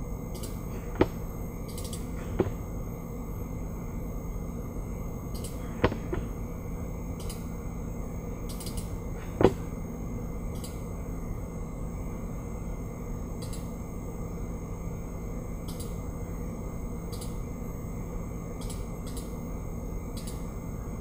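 A few sharp computer mouse clicks, four in the first ten seconds with the last one loudest, over a steady low hum of background noise.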